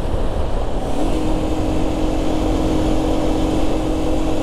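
Aprilia RS 125's single-cylinder four-stroke engine running at steady revs while under way, heard under heavy wind noise on the microphone. The steady engine note settles in about a second in.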